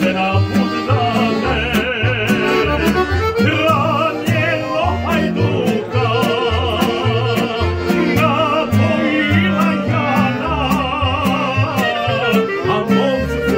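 Live acoustic band of clarinet, accordion and double bass playing a lively folk tune. The double bass plucks a steady beat under sustained accordion chords and a clarinet melody full of quick trills and vibrato.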